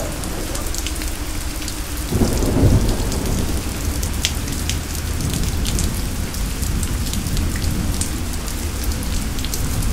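Steady rain pattering, with a low roll of thunder swelling about two seconds in.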